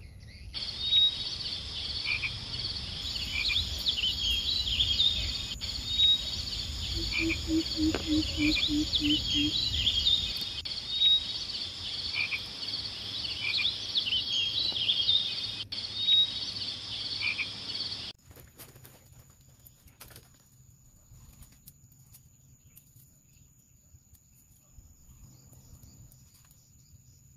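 Frogs calling in a dense chorus over a steady high-pitched insect drone, with sharp calls repeating every couple of seconds and a short run of low, evenly spaced croaks near the middle. The chorus cuts off abruptly about two-thirds of the way through, leaving only a faint high whine and a few small clicks.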